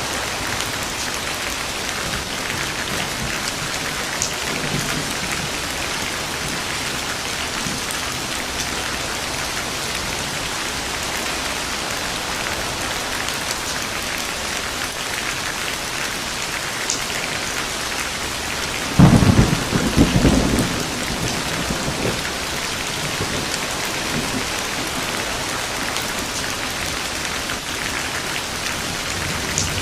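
Steady heavy rain falling, with a sharp close thunderclap and short rumble about two-thirds of the way through.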